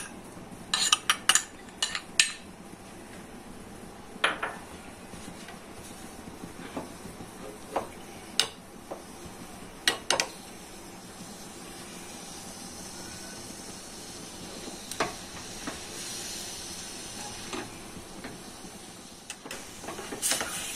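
A metal spoon clinking and scraping against a steel saucepan as milk and mawa are stirred for rabdi: a quick cluster of clinks about a second in, then scattered single clinks. A faint steady hiss from the heating pan swells in the middle.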